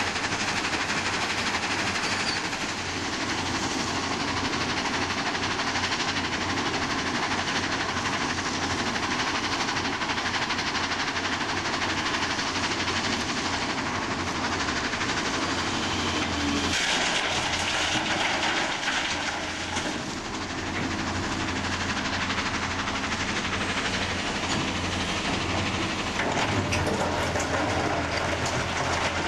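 Heavy diesel construction machinery running at work: a steady engine drone under a dense mechanical rattle, changing in character for a few seconds past the middle before settling back.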